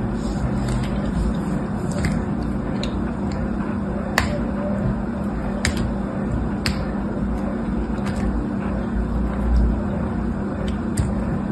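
A small blade shaving and cutting into a dry bar of soap: scraping with sharp, scattered cracks and snaps as flakes break off, over a steady low hum.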